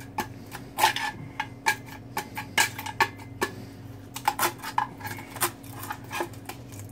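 A pry bar scraping and clinking inside a cut-open Harley-Davidson stock exhaust muffler, knocking loose the remnants of the catalytic converter: irregular sharp metallic clicks and scrapes, over a steady low hum.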